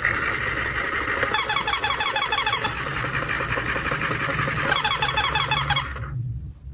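Battery-powered toy playing an electronic sound effect, with fast repeating chirps in two stretches; it cuts off suddenly about six seconds in.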